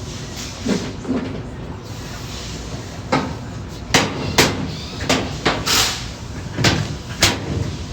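Washing machine's sheet-metal top panel being fitted back on: a series of sharp knocks and clatters as it is set down and pressed into place, starting about three seconds in, with a short scrape near the middle.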